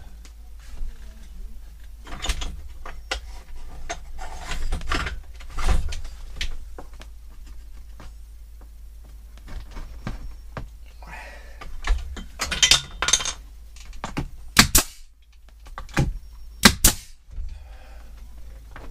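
Wooden shiplap ceiling boards scraping and knocking as one is pressed into place, then several sharp nail-gun shots near the end fastening it.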